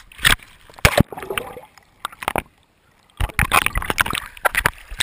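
Sea water slopping and splashing against a GoPro camera's waterproof housing at the surface, in irregular sharp slaps. Near the middle the sound drops almost away for a moment, then the splashing starts again.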